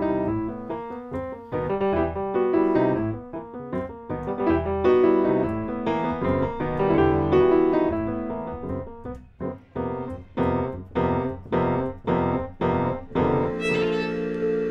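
Instrumental music with piano. About ten seconds in it moves to evenly repeated notes, about two a second, and near the end it settles on a held chord.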